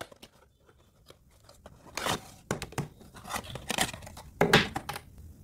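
Thin cardboard packaging box being opened and handled: a few faint ticks, then a series of loud papery scrapes and rustles as the flap is pulled and a mini fan is slid out, the loudest about four and a half seconds in.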